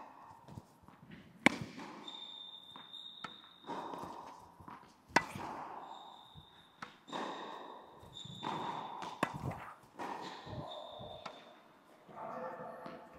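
Tennis ball struck by a racket and bouncing on an indoor hard court: sharp hits, the loudest about one and a half and five seconds in, with smaller ball clicks later, and several short high squeaks in between.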